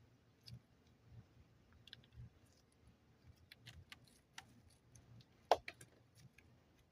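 Faint, scattered clicks and small taps from hands handling modelling clay and its packaging, with one sharper click about five and a half seconds in.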